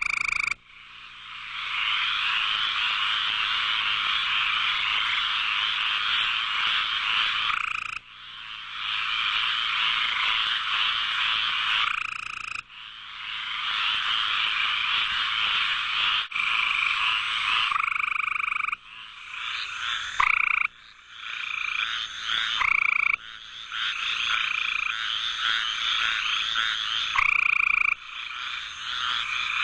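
Toads calling in long, steady trills of several seconds each, with short breaks between them. About two-thirds of the way through, the calling turns into shorter, overlapping calls with a few quick rising chirps.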